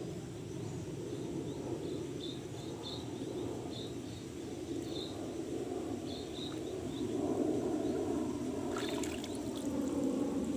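Shallow stream water sloshing and trickling around a wading man's legs and hands as he gropes under the surface, a steady wash that swells a little in the second half. Faint short high chirps sound through the middle.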